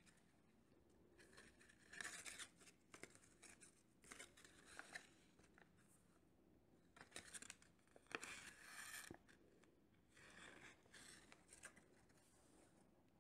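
Faint, soft rustling in several short bursts as cotton yarn is pulled off a skein and wound by hand, with a few tiny clicks.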